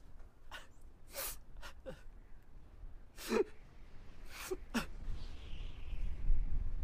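A person sobbing in short, sharp catches of breath: seven quick gasps in about four seconds, some falling in pitch, the loudest about three seconds in. A low rumble runs underneath.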